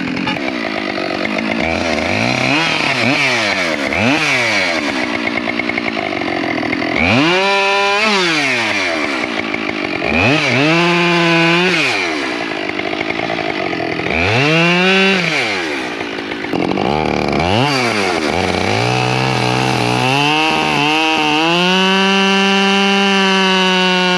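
Husqvarna 572 XP two-stroke chainsaw bucking ash logs: the engine revs up and drops back several times, then is held at a steady high pitch near the end as it cuts through a log.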